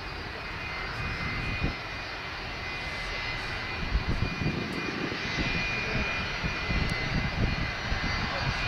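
Jet engines of a Boeing 757 airliner on the runway, running with a steady high whine over a low rumble; the rumble grows louder about halfway through.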